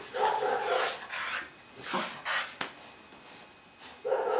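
Puppy vocalising in short bursts while tugging and playing with a cloth, with scuffling on a tile floor.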